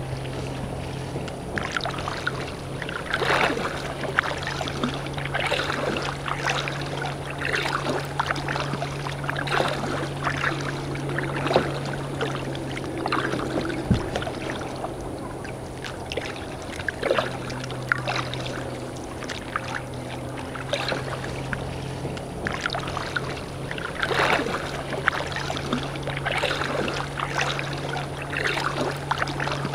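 Kayak paddle blades dipping into the water with small splashes and drips, stroke after stroke about once a second, over a steady low hum.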